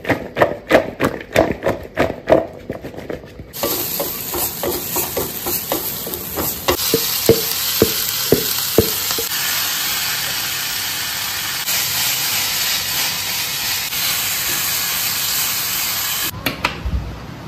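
Mixed vegetables (broccoli, carrot, zucchini, mushroom) clatter as they are tossed in a steel bowl. About three and a half seconds in, they hit a hot frying pan and start sizzling steadily, with spatula knocks for several seconds while they are stirred. The sizzle cuts off suddenly near the end.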